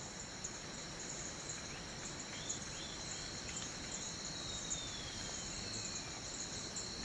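Rainforest ambience: a steady, high-pitched insect chorus, with a few faint chirps early on and one long, slowly falling whistle around the middle.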